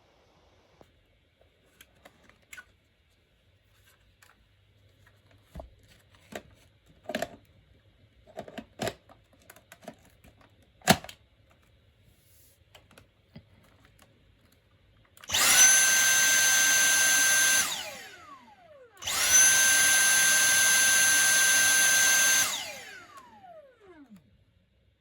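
Clicks and knocks of handling, with a sharp click about 11 seconds in. Then a Dyson cordless vacuum's motor, running on a Makita power-tool battery, runs twice: each time it quickly reaches a steady high whine for about two to three seconds, then winds down with a falling whine once released.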